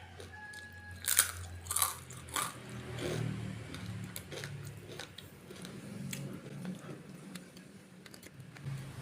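Close-up mouth sounds of someone biting into crispy rempeyek (fried peanut cracker): three sharp crunches close together about a second in, then softer chewing.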